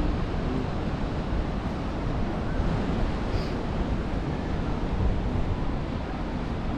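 Ocean surf washing steadily onto the beach, with wind rumbling on the microphone.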